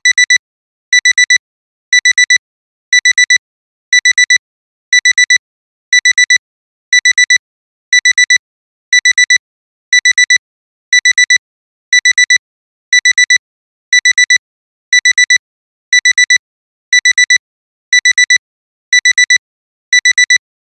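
Digital alarm clock alarm beeping: quick groups of four high electronic beeps, one group every second, repeating steadily, signalling that the timer has run out.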